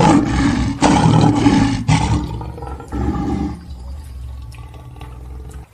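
Lion roaring: three loud, rough roars, then weaker sound tailing off toward the end.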